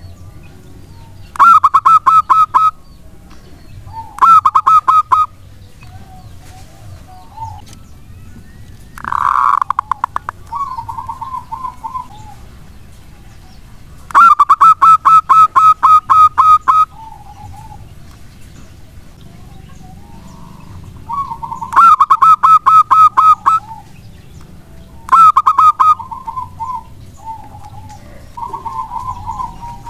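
Zebra dove (perkutut) cooing: about seven loud bursts of rapid staccato coos, each lasting one to three seconds, with softer, lower coo runs between them.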